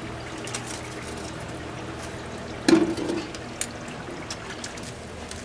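Churros deep-frying in a stainless-steel fryer, the hot oil sizzling and bubbling steadily. One short, loud knock comes a little under three seconds in.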